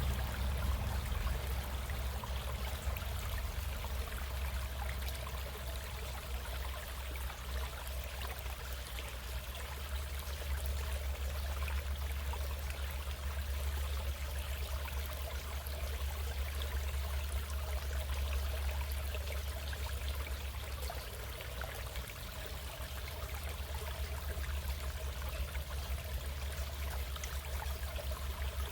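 Stream water running and trickling steadily, with a constant low rumble underneath.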